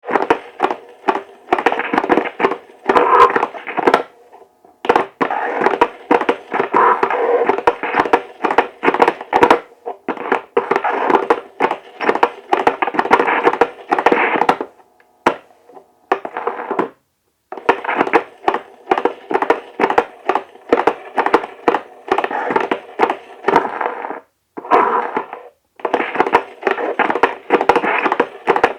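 Turntable stylus dragged over a DVD instead of a vinyl record, giving a harsh scratchy crackle packed with clicks. It comes in stretches of a few seconds, cut off by brief silences three times.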